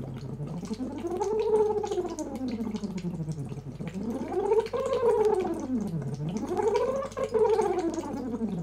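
A woman voicing an "ooh" through a LaxVox tube into a bottle of water, sliding her pitch from low up to high and back down three times. The air bubbling out under the water adds a rapid patter of pops over the sung tone.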